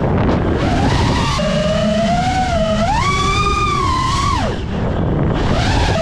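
FPV quadcopter's brushless motors whining, the pitch swinging up and down with the throttle, over a steady rushing noise. The pitch dips sharply about four and a half seconds in and climbs back near the end.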